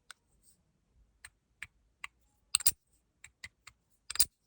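Chunky stainless steel fidget slider with loose balls inside, worked by hand: a run of irregular, sharp metal clicks, really heavy clacking, with the hardest clacks about halfway through and near the end.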